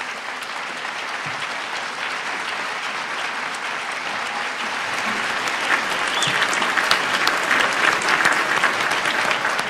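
Audience applause in a theatre hall: many hands clapping at once, filling out and growing a little louder toward the end.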